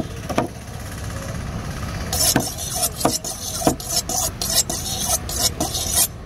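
A large knife chopping through trevally on a wooden block: a series of sharp chops over a steady low rumble of traffic. From about two seconds in, a loud hiss joins and cuts off suddenly near the end.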